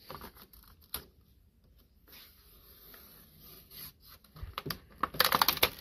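A utility knife scraping and cutting at plastic packaging, with a sharp click about a second in. Near the end comes a fast run of crackling clicks, the loudest part.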